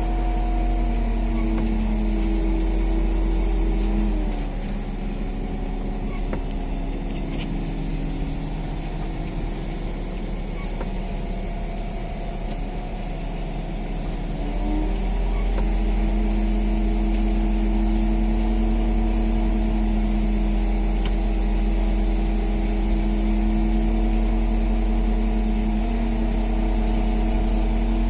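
Fishing boat's engine running steadily, easing off to a lower speed about four seconds in and picking back up around fifteen seconds, with a deep rumble underneath.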